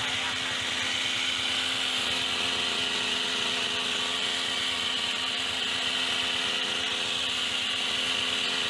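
Petrol hedge trimmer running steadily at high speed, its small engine and reciprocating blades giving a constant high buzz.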